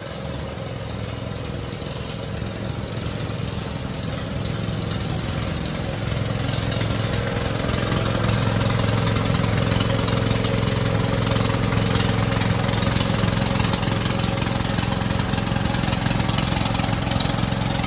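Engine of a gasoline-powered robot sprayer running steadily as it drives down the greenhouse aisle toward the microphone while spraying, a constant hum that grows louder over the first six to eight seconds, then holds.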